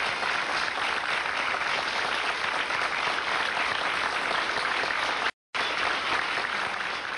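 Audience applauding, with the sound cutting out briefly a little over five seconds in.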